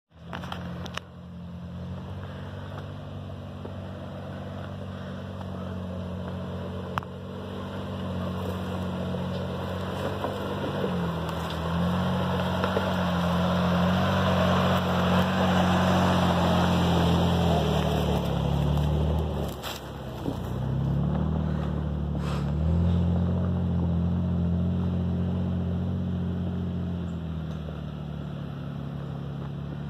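Jeep Wrangler engines running at low revs while crawling over a rocky trail, the note stepping up and down with the throttle. It is loudest through the middle as the nearest Jeep passes close, dips briefly, then picks up again.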